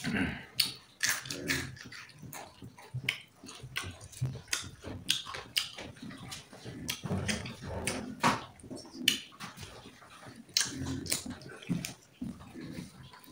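A person eating close to the microphone: irregular chewing and biting with wet mouth clicks and crackles.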